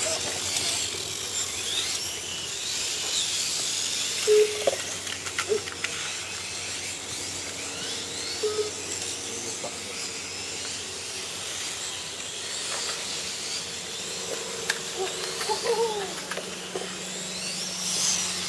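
High-pitched whine of several 1/8-scale RC motorcycles' electric motors, the pitch repeatedly rising and falling as the bikes accelerate and brake through the corners.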